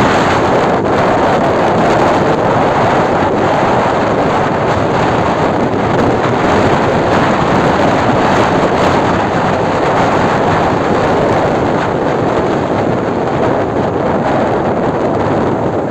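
Strong wind buffeting the microphone over a rough, stormy sea's surf: a loud, steady rushing noise.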